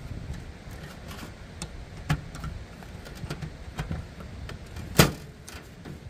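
Ratchet strap being cinched down around a beehive with a galvanized metal lid: irregular metallic clicks and knocks of the ratchet buckle, the loudest one about five seconds in.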